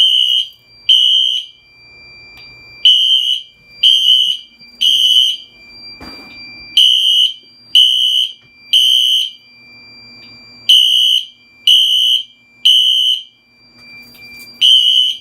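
Several Wheelock fire alarm horns sounding together in sync, in the three-pulse temporal pattern: three short high blasts, a pause, then three more, repeating about every four seconds. A thin steady high tone runs underneath, and there is one sharp knock about halfway through.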